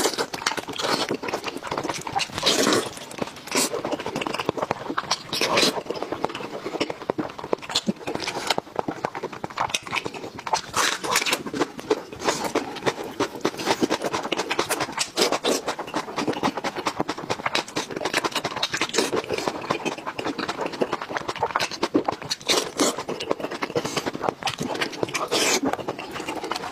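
Close-miked wet chewing and lip smacking of a mouthful of braised sheep's head meat, with sticky sounds of sauce-coated fingers pulling the meat apart.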